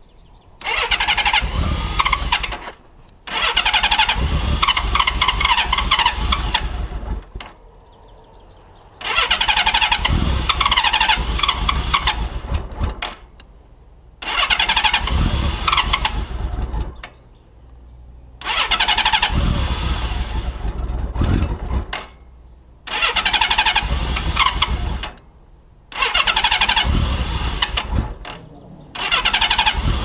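Honda Valkyrie's six-carburettor flat-six being cranked on its starter in about eight bursts of two to four seconds, with short pauses between them. It is a first start after months of standing: the carburettor float chambers are still filling after the petrol tap was closed, so it takes many attempts before all six cylinders work.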